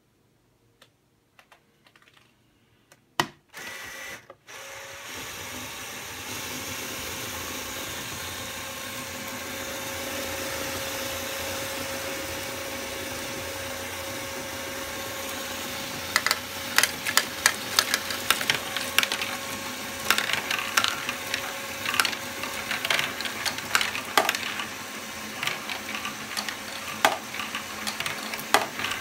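A Lego Great Ball Contraption starts with a sharp click, then its electric motors and plastic gears run with a steady whir. From about halfway through, plastic balls clatter through the modules in quick, irregular clicks and knocks.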